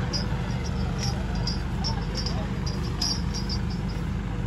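Diesel tractor engines idling steadily, with crickets chirping in short, repeated high chirps over the hum.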